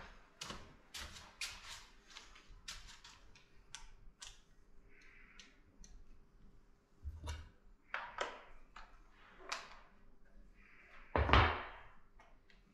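Clicks and knocks of an antique Kuchenreuter bellows airgun's mechanism being handled, thick at first and then sparser, with one louder thump about eleven seconds in.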